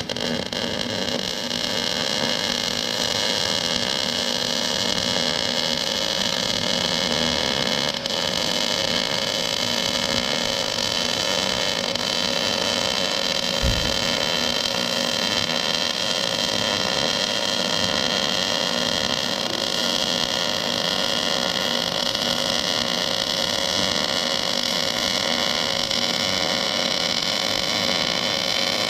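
Arc welder running a long continuous bead on the steel dump bed: a steady sizzling hiss with a steady hum of several tones under it, dipping briefly about eight seconds in.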